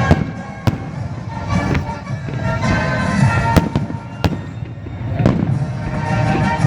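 Fireworks going off: about six sharp bangs at uneven intervals over a continuous low rumble.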